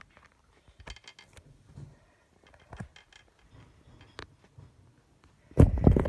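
Handling noise: scattered light clicks and taps, then a burst of loud knocks and rumbling near the end as the phone that is filming is picked up and moved.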